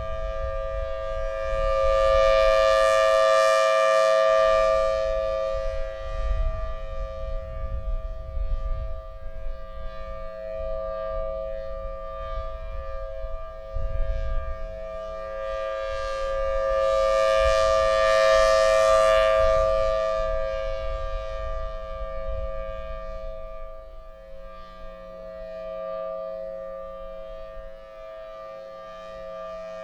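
Federal Signal Thunderbolt 1003 civil defense siren sounding its steady 'Alert' tone, a held chord of two pitches. It swells and fades as the rotating horn sweeps round, loudest a few seconds in and again a little past halfway. Wind rumbles on the microphone underneath.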